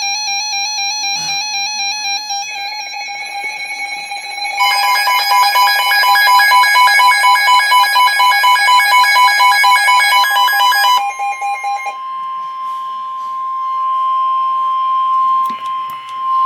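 Warbling electronic alert tones at several pitches, thickening into a dense trilling chord a few seconds in, then giving way to a single long steady tone: the NOAA Weather Radio warning alarm tone that comes before a severe thunderstorm warning message.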